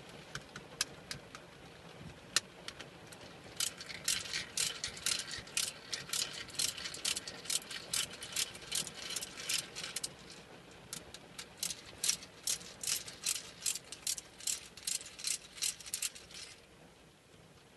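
Hand screwdriver turning screws out of a plastic shifter surround trim panel, giving two long runs of crisp clicking at about three clicks a second with a short break between, after a few scattered clicks.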